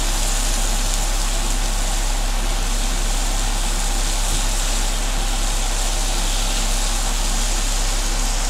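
Winged-bean stir-fry sizzling steadily in a nonstick frying pan as it is stirred, over a constant low hum.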